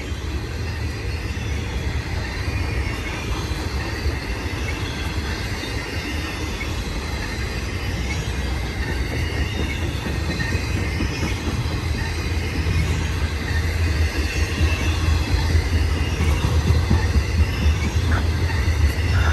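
BNSF intermodal freight train of containers and piggyback trailers rolling past: a steady heavy rumble of wheels on rail, growing louder toward the end, with faint high wheel squeal.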